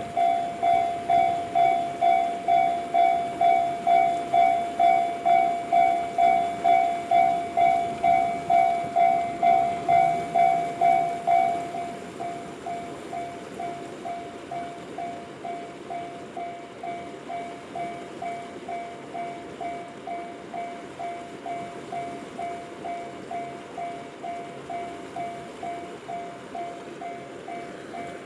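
Japanese railway level-crossing warning bell ringing, an evenly repeating electronic ding at about two strokes a second. About twelve seconds in it drops to a noticeably quieter level and keeps ringing.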